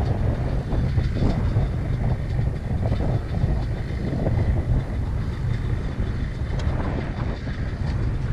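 Steady low rumble of an idling motorcycle engine, mixed with wind buffeting the microphone.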